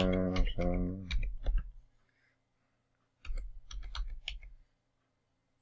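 Typing on a computer keyboard: two runs of key clicks, the first in the opening two seconds and the second starting about three seconds in. A man's drawn-out wordless vocal sound runs over the first second of typing.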